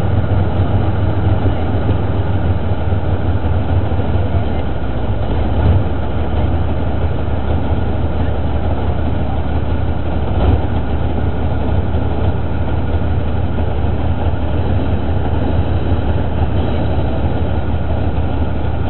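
Diesel engine of an old Soviet tank, taken for a T-55, running with a steady, heavy, low rumble. Two brief knocks come through, one about six seconds in and one about ten seconds in.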